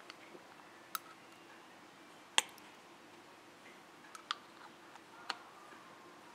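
A handful of sharp, irregularly spaced clicks over a faint steady hum, the loudest about two and a half seconds in.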